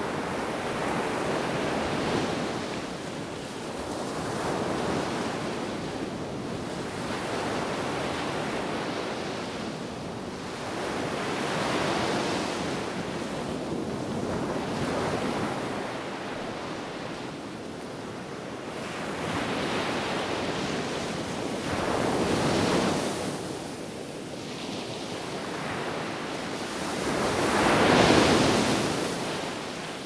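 Small sea waves breaking and washing up a sandy beach, surging every three to five seconds, the loudest wave near the end. Wind blows steadily over the surf.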